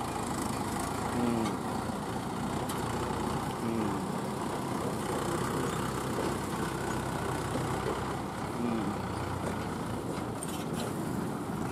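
Mahindra 475 DI tractor's diesel engine running steadily as it pulls a heavily loaded farm trailer past.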